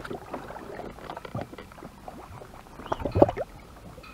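Water sloshing and slapping around a small boat, with scattered knocks and handling noises, and a louder splash or knock about three seconds in.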